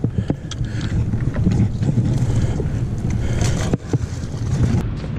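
Wind buffeting the microphone, a steady low rumble, with a few sharp clicks over it.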